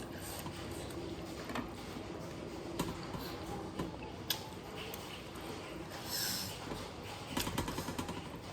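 Close-miked eating sounds: chewing and mouth noises, with a few sharp clicks spread through and a short hiss and a quick run of ticking near the end.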